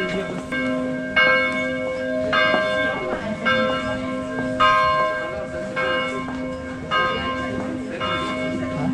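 Church bells ringing, a stroke roughly every second, each ringing on under the next.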